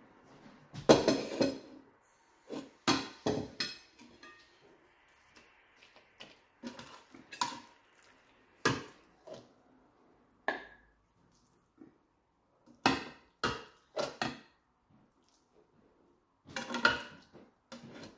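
Wooden spoon knocking and scraping against a stainless steel pot and a china plate while polenta and meat are spooned onto the plate: irregular short clatters and knocks with brief pauses between.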